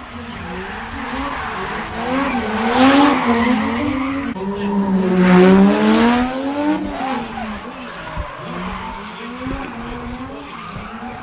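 Two drift cars sliding sideways in tandem: the engines rev up and down, and the tyres squeal. It is loudest about halfway through as the cars slide past.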